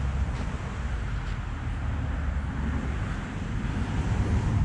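Wind noise on the microphone: a low, uneven rumble over outdoor air noise.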